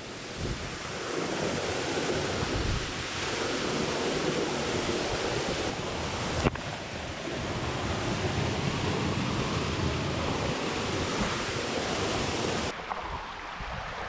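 Steady rush of falling water from a canyon waterfall and creek, with a single sharp click about six and a half seconds in. The high hiss drops away near the end.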